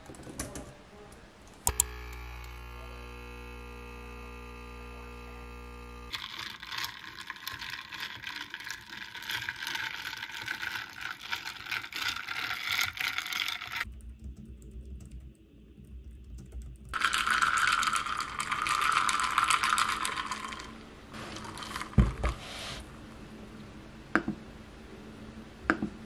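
Typing on a computer keyboard: quick key clicks in several separate stretches. A steady hum runs for about four seconds near the start, and a louder rushing noise comes a little after the middle.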